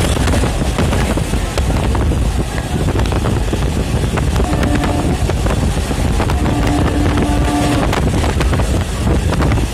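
Indian Railways EMU suburban train running at speed, heard from an open doorway of the coach: a steady rumble and clatter of wheels on rail, with wind rushing over the microphone. A brief steady tone sounds about halfway through and again a couple of seconds later.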